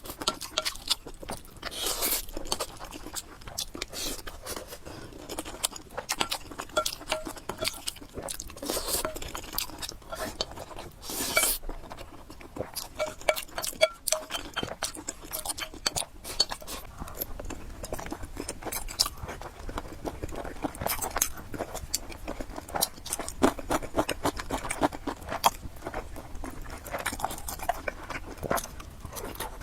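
Close-miked eating of noodles: steady chewing with many small wet clicks and a few longer noisy bursts, plus occasional clinks of utensils on a dish.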